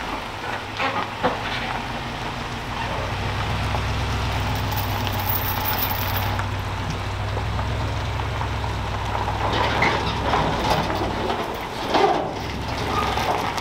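Pickup truck engine running steadily as it tows a loaded car trailer away, with tyres crunching over gravel. The trailer knocks a couple of times about a second in and once, louder, near the end.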